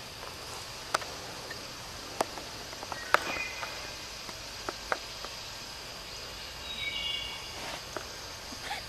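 Woodland ambience: a steady high hiss of insects, with a few sharp ticks and snaps and brief high chirps about three and seven seconds in.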